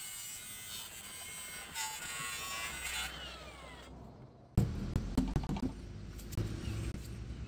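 Cordless angle grinder cutting into a water heater's sheet-steel outer jacket, its pitch falling as it winds down about three seconds in. After a short pause, a run of knocks and scraping as the cut panel is worked at.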